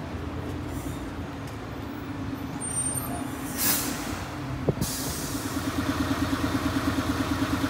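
City route bus idling at the stop, a steady low engine hum. About three and a half seconds in, a hiss of air lasts about a second and ends with a sharp click. After that a rapid, even pulsing of about five or six beats a second sets in.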